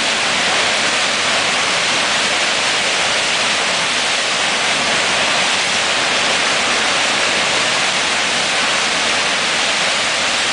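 Steady rush of whitewater from a fast river pouring over a standing wave, even and unbroken throughout.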